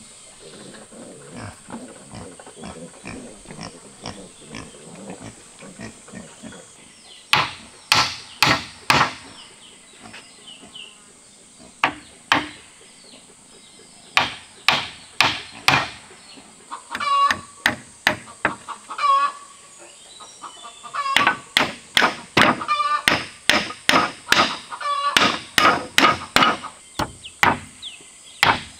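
Hammer driving nails into the wooden slats of a crate, struck in quick runs of several blows with short pauses, the blows coming thicker near the end.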